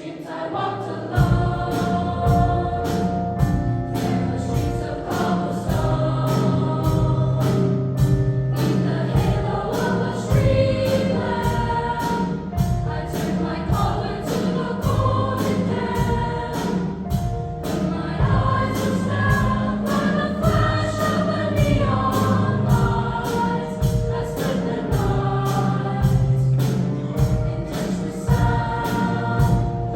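Junior-high girls' choir singing in parts over accompaniment with a steady beat and a sustained bass line, starting about a second in.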